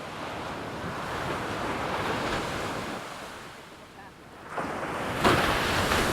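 Ocean surf: waves wash in and draw back. A new wave breaks about four and a half seconds in and is loudest just after five seconds, with wind noise on the microphone.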